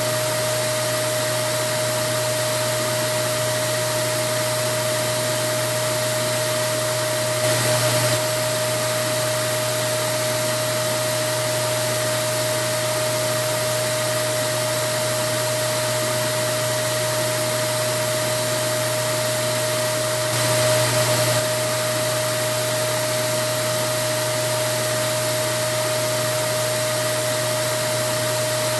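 Vacuum cleaner running steadily: a constant rush of air with a steady motor hum held at one pitch. The sound swells slightly twice, about seven and a half seconds in and again about twenty seconds in.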